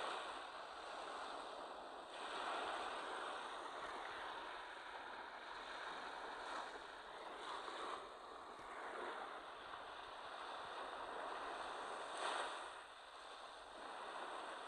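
Waves washing in on a beach: an even rushing hiss that swells and falls back every few seconds, strongest about two, seven and twelve seconds in.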